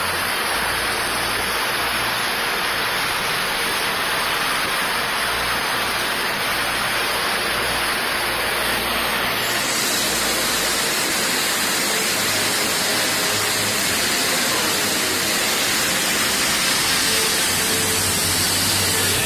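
Shallow rocky river rapids rushing steadily.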